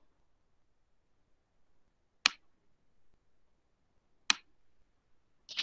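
Two sharp clicks about two seconds apart, made while writing on a digital whiteboard; between them near silence.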